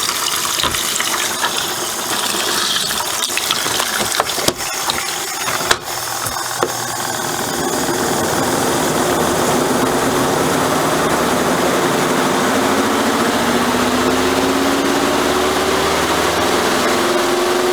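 Twin-tub washing machine running through its rinse with water flowing into the tub: a steady churning and rushing, with a few sharp knocks in the first six seconds. Over the last few seconds a tone slowly rises in pitch.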